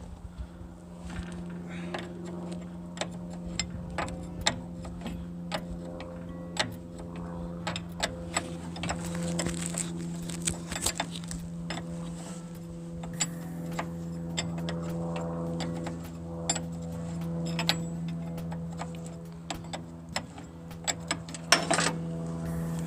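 Irregular metallic clicks and knocks of hands and tools working on hydraulic hose fittings, over a steady low hum.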